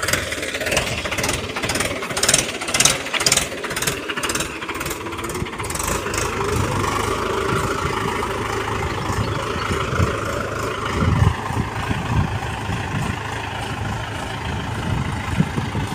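Tractor diesel engine running under load as it pushes a heap of cut branches with its front blade, the engine note rising and then falling in the middle. A run of sharp clicks and crackles sounds over it in the first six seconds or so.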